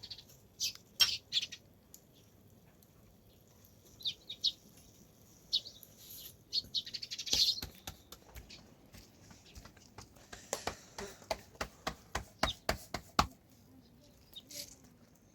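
Scattered short bird chirps, then a run of quick clicks or taps, about four a second, in the second half.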